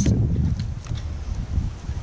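Wind buffeting the microphone, a steady low rumble, with a few faint ticks in the middle.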